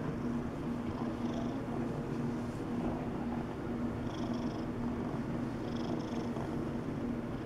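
Domestic tabby cat purring steadily while its chin is scratched, the purr swelling and easing about once a second with its breathing.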